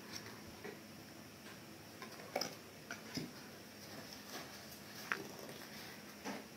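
Pokémon trading cards being handled: a few faint, short clicks and taps at irregular intervals.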